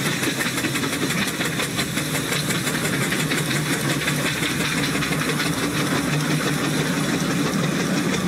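Steam traction engine running as it hauls wagons, with a steady steam hiss and rapid, regular beats from the engine.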